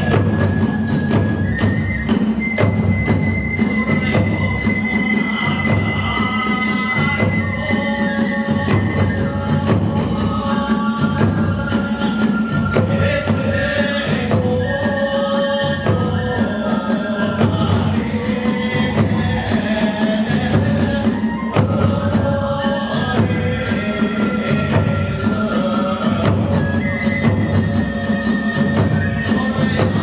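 Hiroshima-style kagura accompaniment: a bamboo flute playing long high notes and a moving melody over a steady big-drum beat and clashing hand cymbals.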